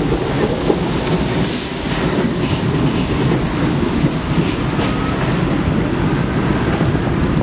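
R32 subway train pulling out and running away along the elevated track: a steady rumble and rattle of steel wheels on the elevated structure. A brief high hiss comes about a second and a half in.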